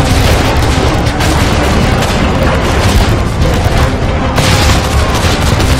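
Recorded battle sound effects: continuous booms of explosions mixed with gunfire, dense and loud with no breaks.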